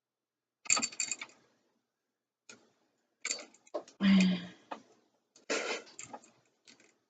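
Black vinyl electrical tape being pulled off the roll and wrapped around an electrical outlet, in several short crackling pulls.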